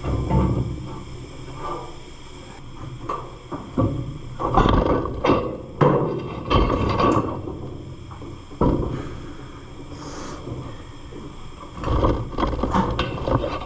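Irregular clunks, knocks and scraping of a heavy metal engine part being lifted off and handled, with quieter pauses between the bursts.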